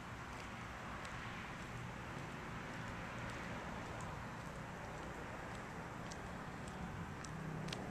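Outdoor road-traffic noise: a steady hiss of passing tyres that swells in the middle, over a low rumble, with faint short high ticks scattered through it. Near the end a low hum grows louder as a vehicle approaches.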